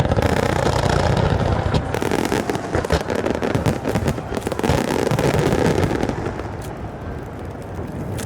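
Aerial fireworks bursting in a dense barrage of bangs and rapid crackling, which dies down about six seconds in.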